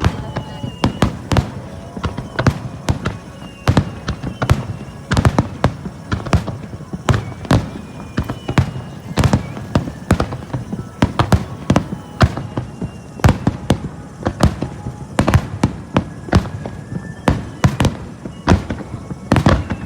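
Fireworks grand-finale barrage: shell bursts banging in quick, irregular succession, several a second, with short high whistling tones between the bangs.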